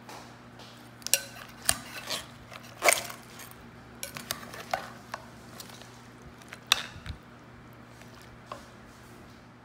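Dishes and metal utensils clinking and clattering: about a dozen sharp knocks, some with a short ring, mostly in the first seven seconds. A steady low hum runs underneath.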